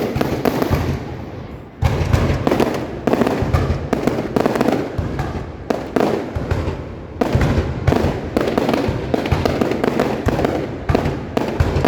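Fireworks going off in quick succession, a dense run of bangs and crackling, with a short lull just before two seconds in.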